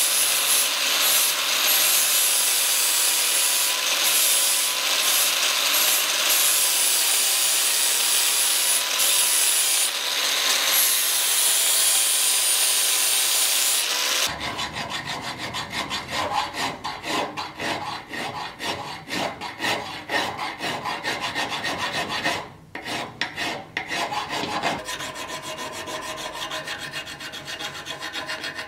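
Angle grinder whining as its disc grinds a steel sword cross-guard clamped in a vise, for about the first half. Then the grinder stops and a hand file scrapes along the cross-guard in quick rhythmic strokes, with a short pause about three quarters of the way in.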